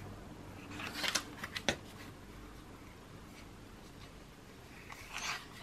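Pages of a paper sticker book being turned by hand: a papery rustle with a few sharp clicks about a second in, and another short rustle near the end.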